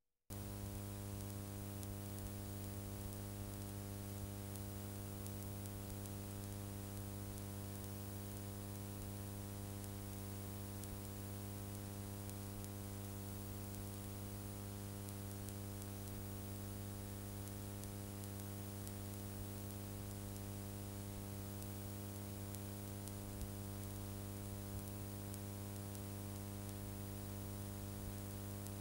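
Steady electrical mains hum with a buzz of many even overtones over a bed of hiss, switching on suddenly at the start and holding unchanged throughout.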